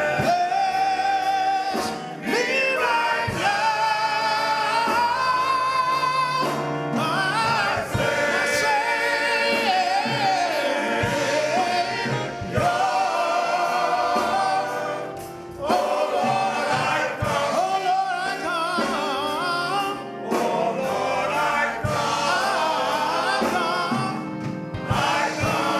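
Gospel choir singing, long held and gliding notes over music.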